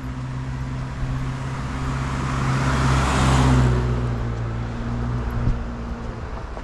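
A car drives past, its engine and tyre noise swelling to a peak about halfway through and then fading. A single sharp click sounds near the end.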